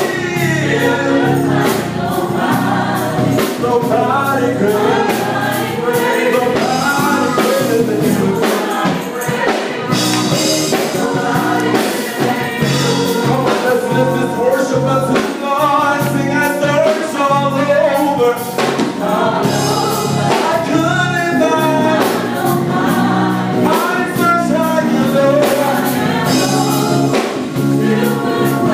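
Live gospel choir singing with instrumental backing and a steady beat.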